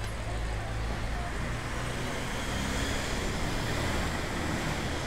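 Street traffic noise: a steady low drone of passing vehicles.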